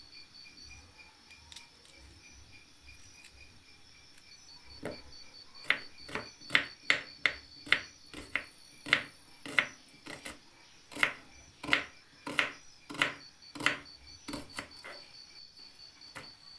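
Small kitchen knife cutting shallots on a round wooden chopping board: a run of sharp, uneven knocks, about two a second, starting about five seconds in and stopping a little before the end.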